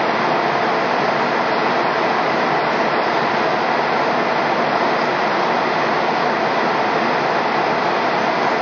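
Steady cabin noise of a McDonnell Douglas MD-80 airliner in flight: an even rush of airflow and engine noise, with no changes.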